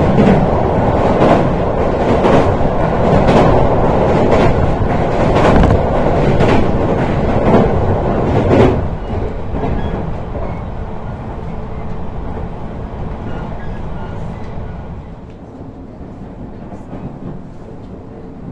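Electric local train heard from inside the carriage, running over a steel truss railway bridge: a loud rumble with a wheel clack at the rail joints about once a second. About nine seconds in it comes off the bridge and the running noise drops to a quieter, steady sound of wheels on track.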